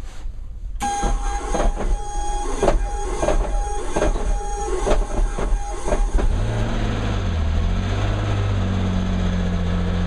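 Bell 47G-4A helicopter's Lycoming VO-540 six-cylinder piston engine being cranked by its electric starter: a steady starter whine with about two compression thumps a second. About six seconds in the engine catches, and after a short wavering in pitch it settles into a steady idle.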